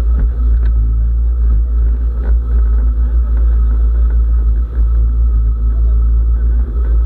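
Microlight trike's engine running steadily behind the seats, its pusher propeller turning: a continuous drone with a heavy, deep low end.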